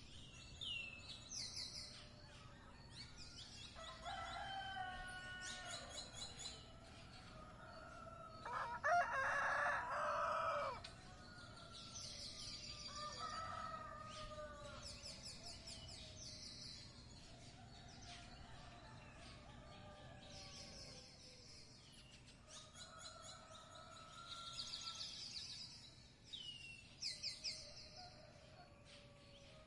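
A rooster crowing: one louder crow lasting about two seconds, about nine seconds in, with fainter crows before and after it. Small birds chirp in short high bursts over and over throughout.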